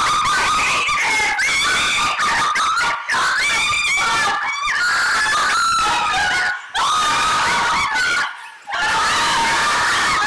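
People screaming and shrieking as on a roller coaster ride, loud and almost without pause, breaking off briefly about six and a half and eight seconds in.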